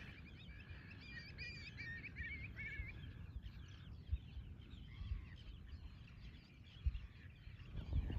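Many seabirds calling in a breeding colony: quick, warbling high calls overlapping, busiest in the first three seconds, then thinner scattered chirps, over a low steady rumble.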